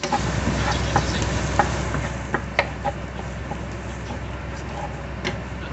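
Minced garlic sizzling in hot oil in a nonstick frying pan while being stirred with a wooden spatula. Scattered clicks and scrapes of the spatula on the pan come mostly in the first three seconds.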